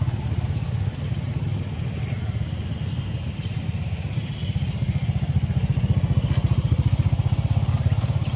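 A small engine running steadily off-screen, a low rumble with a fast, even pulse that gets a little louder about five seconds in, with a few faint high squeaks over it.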